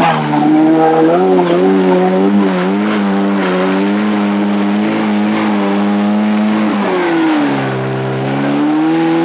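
A car engine held at high revs as it labours up a muddy trials hill, the rear wheels spinning in the mud. The pitch wavers at first, holds steady, then drops about seven seconds in and climbs back up.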